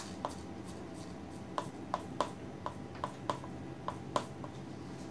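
A drink is poured from an insulated plastic jug into a paper cup: about a dozen small, irregular clicks and taps, over a steady low room hum.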